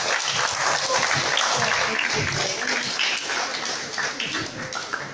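Group applause, many hands clapping together with voices mixed in, fading near the end.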